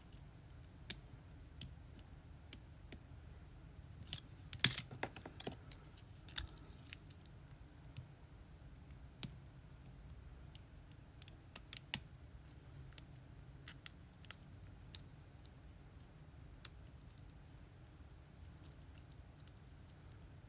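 Small, sharp metallic clicks of a hook pick and tension wrench working the pins of a Lockwood 334B45 padlock, one at a time every second or two. About four seconds in, a burst of jangly metal clicks and scrapes runs for roughly three seconds.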